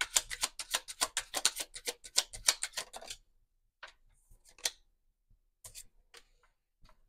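Tarot cards being shuffled by hand: a rapid run of crisp clicks for about three seconds, then a few separate clicks.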